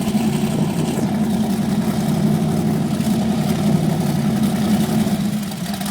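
Apache powerboat engine idling steadily, a low even note with no revving.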